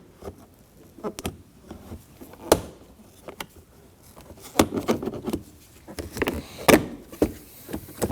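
Plastic trim tool prying up the plastic window-switch trim panel on a car's front door: irregular clicks, creaks and snaps of plastic and its retaining clips, with a few sharper snaps spread through.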